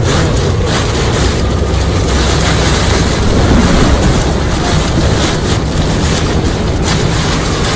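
Steady loud rumble and rush of wind and driving rain, heard from inside a car moving through a storm, with a few brief louder gusts or splashes against the windscreen.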